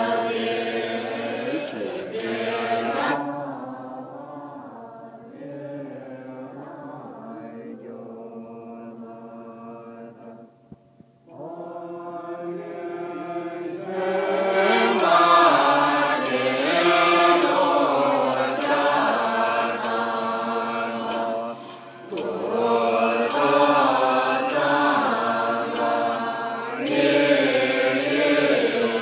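Group chanting of Tibetan Buddhist prayers: monks and a lay congregation recite from texts in unison in a steady, droning chant. It grows quieter a few seconds in, nearly stops for a moment near the middle, then comes back louder and fuller.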